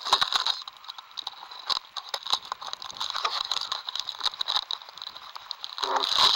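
Hands handling a model airplane right beside the microphone: irregular clicks, taps and rattles. The handling grows louder and busier near the end.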